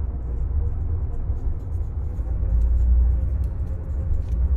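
A deep, steady rumble, with faint scratches of a pen writing on a small paper note.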